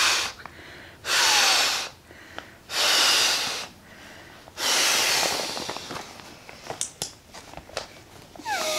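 Four strong breaths blown by mouth into the push-button one-way valve of a Trekology inflatable hiking pillow, inflating it. The blows come about a second apart, with quieter inhalations between them, and the last is the longest. A few faint clicks and fabric rustles follow as the pillow is handled.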